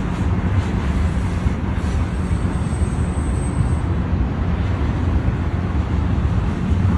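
Double-stack intermodal freight train's well cars rolling past: a steady, deep rumble of steel wheels on rail.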